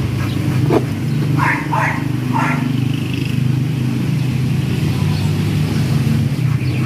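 A motor vehicle's engine idling with a steady low hum, and a dog whining briefly three times about a second and a half in.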